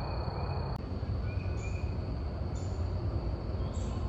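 Outdoor ambience: a low rumbling noise on the microphone, a steady high insect drone that stops under a second in, and short high insect chirps about once a second.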